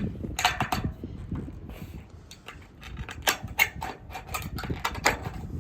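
Hand snips cutting sheet-metal trim to an angle: a series of irregular sharp clicks and metallic crunches, with a louder cluster about half a second in and more near the end.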